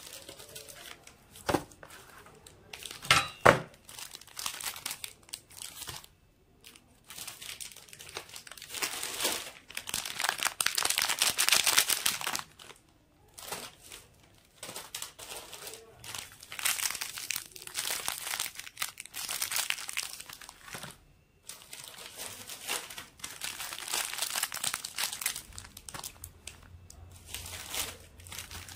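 Plastic chocolate-bar and biscuit-packet wrappers crinkling as they are handled and set down, in several long stretches, with a few sharp knocks about two to three seconds in.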